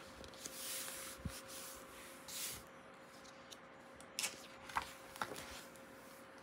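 Pages of a hardcover art book being handled and turned: soft rustles of a hand sliding over the paper, with a few light clicks and crinkles as a page turns about four to five seconds in.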